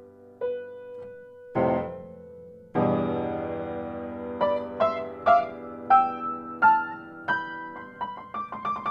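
Background piano music: a few single notes, two full chords about a second and a half and three seconds in, then a melody of notes that quickens near the end.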